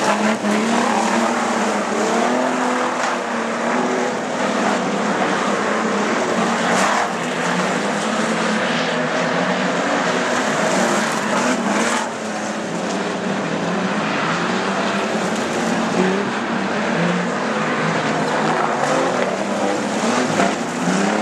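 Several street stock race sedans running hard on a dirt oval. Their overlapping engines rise and fall in pitch as the drivers throttle on and off through the turns and the cars pass by.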